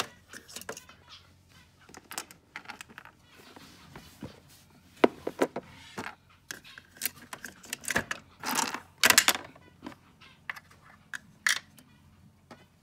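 Small plastic toy pieces clicking and clattering as they are picked up and set down in a plastic dollhouse: irregular light clicks throughout, with busier, louder clusters about five seconds in and from about seven to nine seconds in.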